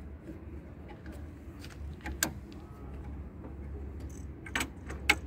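Sharp clicks and taps of fuel-line fittings being handled on a diesel fuel filter housing, one loud click about two seconds in and two more near the end, over a low steady hum.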